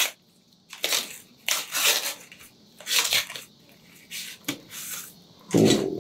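Packaging crinkling and rustling in short, irregular bursts as a cigar five-pack is opened by hand. Near the end comes a louder, duller bump of handling.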